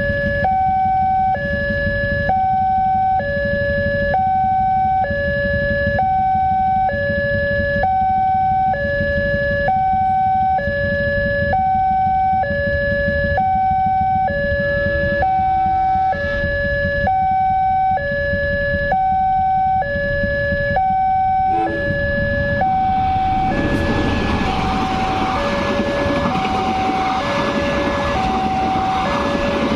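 Railway level-crossing warning alarm sounding a two-tone electronic signal, alternating high and low about once a second, to warn that a train is coming. About three-quarters of the way in, a loud rushing rumble rises over the alarm as the train passes.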